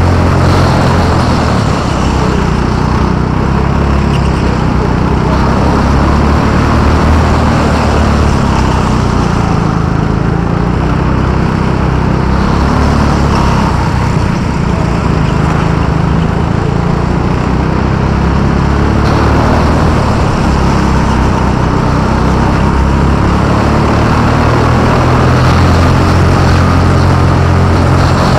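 Go-kart engine running under throttle through a lap of an indoor track, heard close up from the kart itself. Its pitch rises and falls gently as the kart goes through the corners.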